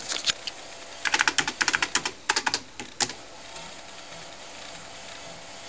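Keys being typed on a TRS-80 Model III keyboard: a few clicks, then a quick run of keypresses that stops about three seconds in.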